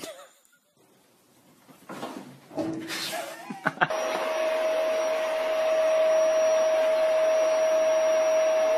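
An electric appliance motor starts abruptly about four seconds in and runs steadily: a constant hum with a thin high whistle over an even hiss. Before it there are only faint small knocks and rustles.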